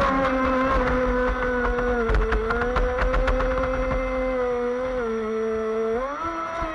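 RC speedboat's motor running with a steady whine that sinks in pitch about five seconds in and climbs again a second later as the throttle changes, with water slapping and splashing against the hull.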